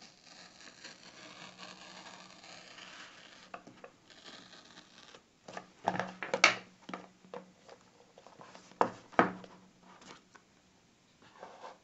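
A small cardboard box being handled and its seal worked open with a small knife: faint scratchy rustling for the first few seconds, then sharp knocks of the box and knife on a wooden desk, the loudest about six seconds in and two more near nine seconds.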